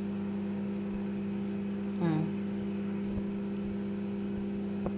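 Microwave oven running with a steady hum while heating pieces of chicharon. A brief falling voice sound about two seconds in.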